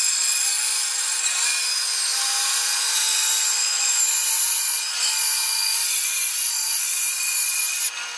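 Bandsaw slicing a hardwood cake lifter blank thinner along a tapered line, with a steady high hiss from the blade in the wood. The cut ends near the end, and the saw keeps running more quietly.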